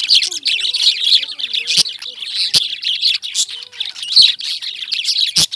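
A flock of caged lovebirds chirping and chattering continuously in many overlapping high calls, with a few sharp clicks among them.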